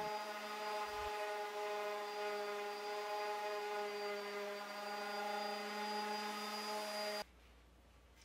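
Corded electric sander running steadily with a motor whine and sanding hiss as 320-grit paper works the edge of a pine case. It cuts off abruptly about seven seconds in.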